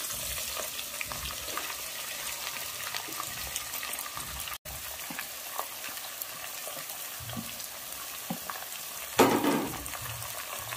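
Sliced onions sizzling in hot oil in a pressure cooker, with a steady frying hiss and the light scrape and clink of a spoon stirring them. About nine seconds in there is a short, louder burst of sizzling and scraping.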